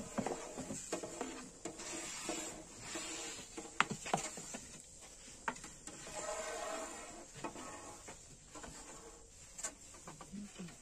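Thin wooden rolling pin rolling and knocking against a round wooden board as flatbread dough is rolled out, with scattered clicks and taps. A faint animal call comes in around the middle.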